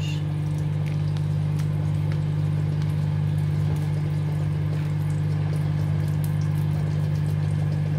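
A loud, steady low hum runs under bacon frying in butter in a pan, with faint scattered crackles.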